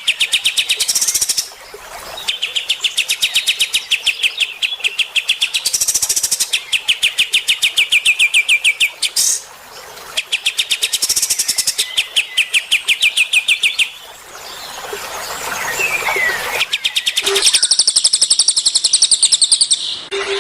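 Small songbird singing: rapid, high trills in bursts of two to three seconds, repeated with short breaks, changing near the end to a higher, faster trill.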